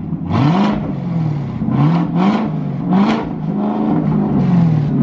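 2018 Camaro ZL1's supercharged 6.2 L V8 revved in a string of quick throttle blips, heard through a Corsa Extreme NPP catback exhaust. Each blip rises and falls in pitch.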